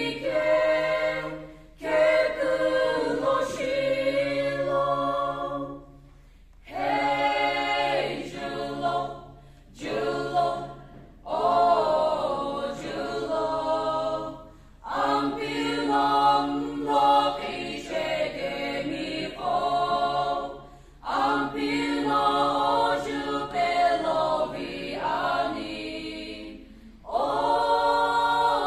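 Mixed choir of men's and women's voices singing a cappella in phrases, with short pauses for breath between them.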